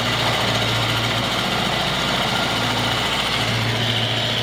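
JET JMD-45PFD milling machine running with a steady motor hum and a high gear whine; the whine grows louder right at the start.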